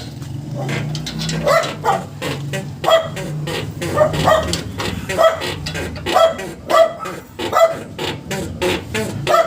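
Isuzu D-Max front suspension squeaking over and over, about two squeaks a second, as the truck is worked up and down. This is the squeak under investigation, which is being traced to the suspension arm.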